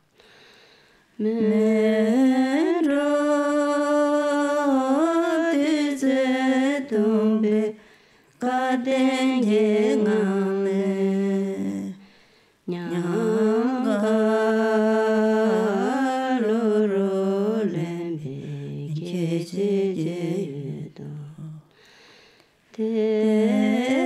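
A solo voice singing slow, chant-like phrases with long held notes. There are four phrases, with short breaks between them: about a second in, near eight seconds, near thirteen seconds, and a last phrase beginning near the end.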